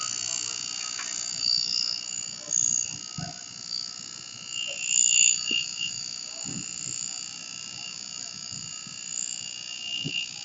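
A high-pitched warning alarm sounds steadily and wavers while the firehouse's overhead bay door rolls down and shuts. A few dull knocks sound underneath it.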